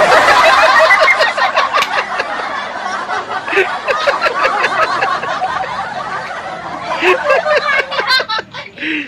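A group of children and a woman laughing and shrieking together, loudest in the first couple of seconds and then tailing off into scattered giggles.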